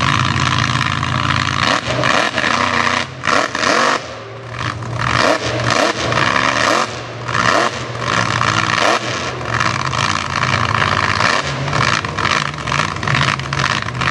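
Mega truck's engine revving hard in repeated surges while stuck in deep mud, its tires spinning and slinging mud; the revs drop off briefly a few times.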